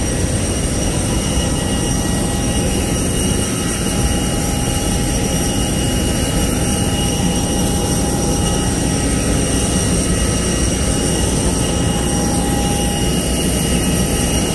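Steady jet turbine noise of airliners on the apron: a loud, even rumble with several high, steady whining tones over it.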